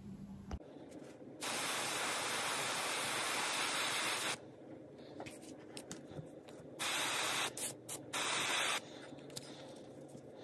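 Iwata Eclipse airbrush hissing in bursts: a steady spray of about three seconds, then a few short puffs and a second spray of about two seconds.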